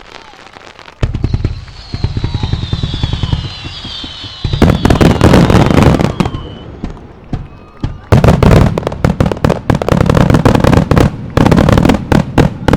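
Aerial fireworks going off in a rapid barrage: many bangs and crackles in quick succession, bunched into dense volleys, with a falling whistle in the first few seconds.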